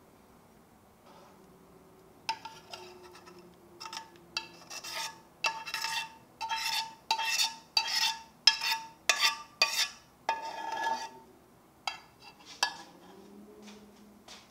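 A metal spoon scraping and knocking against the sides of a stainless steel saucepan, about a dozen quick strokes each with a short metallic ring, as thick persimmon jam is scraped out of the pot. Two sharp taps follow near the end.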